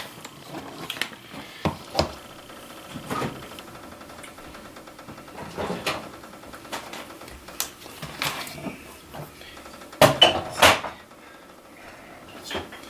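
Scattered knocks and clunks of kitchen things being put away, with the loudest pair of knocks about ten seconds in.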